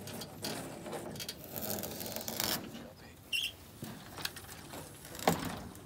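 Irregular scraping and rubbing of objects being handled, with a few knocks and one sharp knock near the end. A brief high chirp sounds about halfway through.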